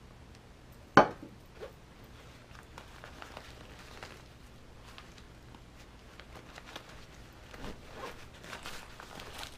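A single sharp knock about a second in, a drinking tumbler set down on the desk, followed by soft rustling and small clicks as a zippered nylon pouch is handled.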